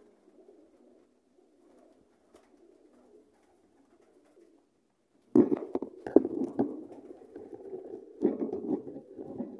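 Kasni high-flyer pigeon cooing: faint low cooing at first, then louder cooing from about halfway, with several sharp knocks mixed in.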